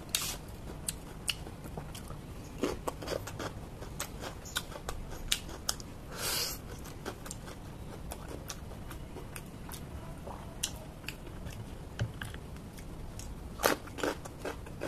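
A person chewing raw vegetables close to the microphone: many short, sharp crunches and mouth clicks, with a short hiss about six seconds in and a few louder crunches near the end.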